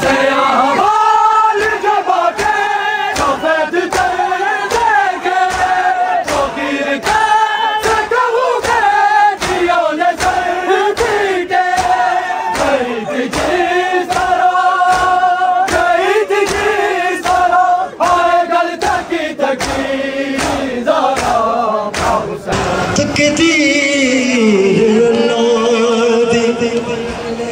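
A group of male mourners chanting a Shia noha in unison, with rhythmic matam, open hands striking chests, keeping time at about two beats a second. Near the end the beating thins out and one long held note carries on.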